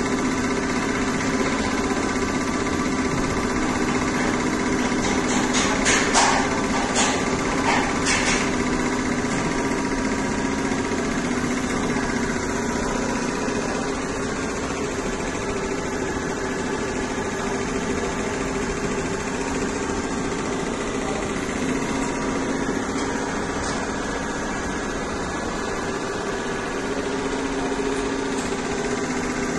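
Single-head multi-needle embroidery machine running steadily, its needle bar stitching at a fast even rate with a mechanical hum. A few sharp clicks come about six to eight seconds in.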